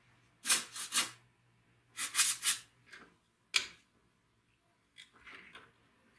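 An aerosol oil spray can hissing in several short bursts as it soaks the rusted nuts on an old chainsaw's cylinder cover. Near the end come softer metal clicks as a combination wrench is fitted onto a nut.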